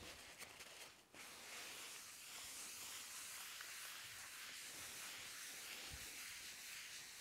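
Faint steady hiss of a paper towel rubbing oil across a wooden cutting board.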